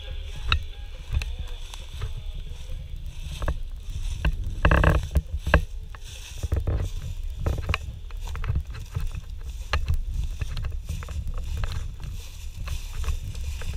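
Footsteps crunching through dry fallen leaves: irregular crackles and rustles over a low steady rumble, with one louder rustle about five seconds in.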